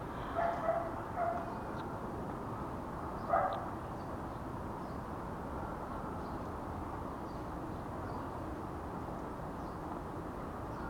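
A dog barking: a few short barks in the first second or so and one more about three and a half seconds in, over a steady background hiss.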